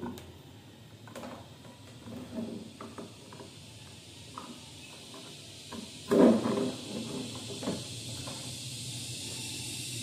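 Cable and connector handling at a KVM switch: scattered small clicks and rustles as plugs are pushed into its ports, with a louder knock about six seconds in, then a steady faint hiss.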